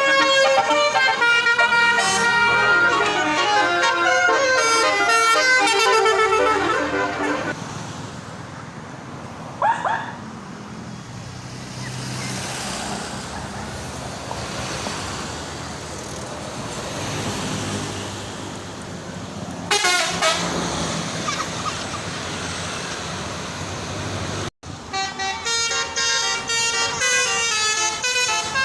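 Basuri multi-tone "telolet" bus horns playing quick tunes of many notes, then a long stretch of traffic and engine noise broken by two short horn toots, before another telolet tune starts abruptly near the end.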